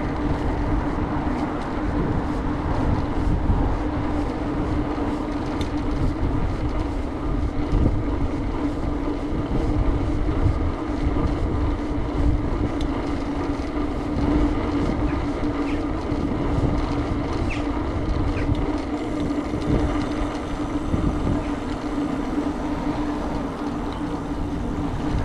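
Wind buffeting the microphone and tyre and road noise from a bicycle being ridden at a steady pace, with a constant low hum and a few faint ticks.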